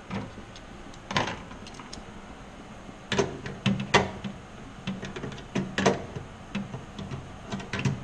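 Hand tools clicking and clinking against aluminium sheet-metal airframe parts: a dozen or so sharp, irregular clicks and knocks, loudest about halfway through.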